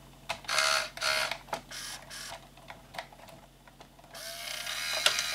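Small electric gear motors of a Hobby Engine 1/14-scale RC wheel loader's lift arm and bucket whirring in short bursts as the bucket is worked, then a longer whirr rising in pitch from about four seconds in.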